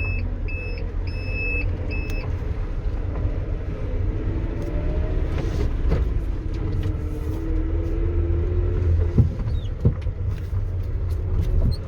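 GAZelle Next van driving, with a steady engine and road rumble and a few sharp knocks, the clearest two near the end. The knocks come from the body striking the frame at a loose left-side body mount that has one bolt missing and two slack. An electronic beep repeats for the first couple of seconds.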